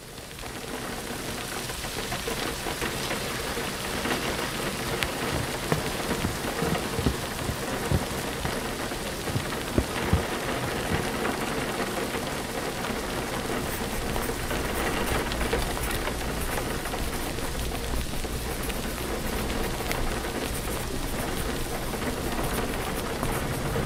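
Steady rain falling, fading in over the first couple of seconds. A few louder drops tap out against the hiss near the middle.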